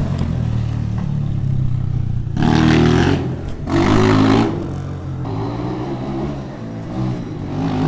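Kayo T2 pit bike engine running and revved up twice in quick succession about two and a half seconds in, then settling back to a lower, steadier note.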